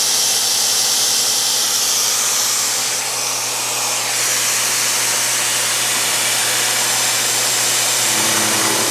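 Compressed-air blast hissing steadily over a milling cut, extremely loud, with the milling machine's steady hum underneath. The air is cooling the cutter and work during a deep serration cut about 60 thou deep.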